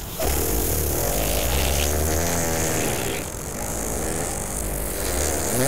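A long, drawn-out fart sound effect, low and wobbling in pitch. It cuts in abruptly and stops suddenly after about five and a half seconds.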